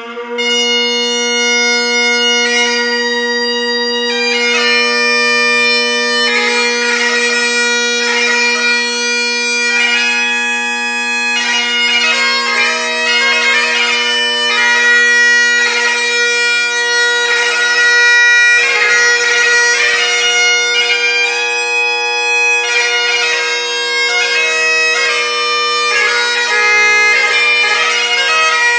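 Great Highland bagpipe: the drones hold a steady chord while the chanter, coming in right at the start, plays a slow melody broken by quick grace-note ornaments.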